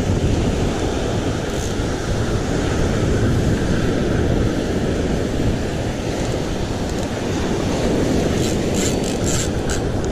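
Wind buffeting the microphone over the steady wash of breaking surf, with a few faint ticks near the end.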